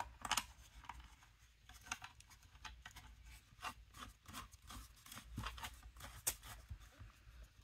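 Faint, irregular small clicks and scrapes of a plastic gooseneck arm being screwed by hand into the clamp base of a magnifying lamp.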